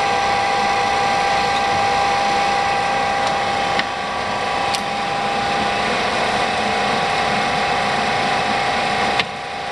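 Warner & Swasey No. 3 ram-type turret lathe running with a steady machine whine made of several held tones. A sharp click comes about four seconds in and another near the end, and each time the sound drops a little as a lever on the apron is shifted.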